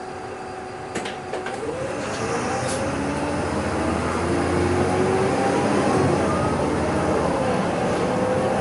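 Bus engine and drivetrain heard from inside the cabin as the bus pulls away and accelerates: the running noise builds, with a whine that rises in pitch over several seconds, and a couple of rattling clicks near the start.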